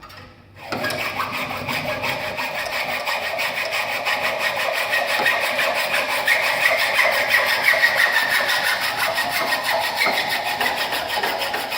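Hand saw cutting through an aluminium bicycle fork steerer tube to length, starting just under a second in with steady, fast back-and-forth strokes.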